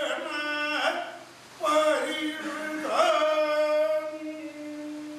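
A single voice chanting a verse in the slow, drawn-out Kutiyattam recitation style: a phrase, a short break about a second in, then more syllables ending in a long, steady held note from about three seconds in that slowly fades.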